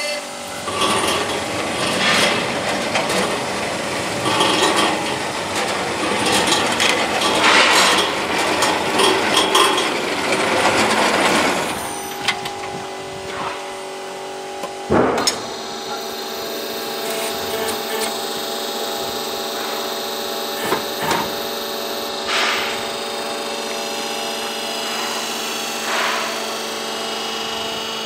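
Donaris Puma hydraulic band sawmill with a 15 kW motor sawing through a squared timber: a loud, rough, crackling cut for roughly the first twelve seconds, then the machine settles into a steady hum. A sharp knock stands out about fifteen seconds in, with a few lighter knocks after it.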